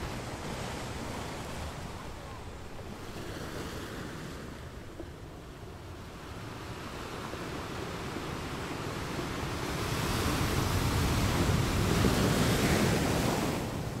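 Ocean waves crashing on a shore: a steady wash of surf that builds over the second half, peaks, and falls back near the end.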